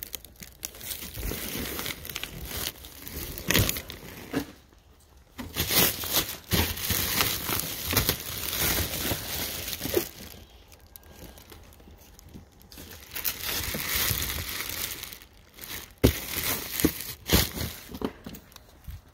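Plastic wrap crinkling and rustling in several bouts as boxes on a pallet are handled and pushed around, with a few sharp knocks of cardboard boxes.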